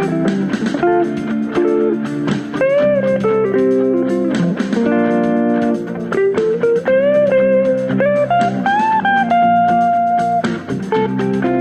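Guitar playing a bluesy lead line over lower chords, with several notes bent upward in pitch.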